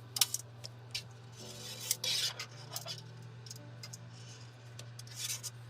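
Computer hardware being handled: a few sharp clicks, then scraping and rubbing of metal and plastic parts about two seconds in and again near the end, over a steady low hum.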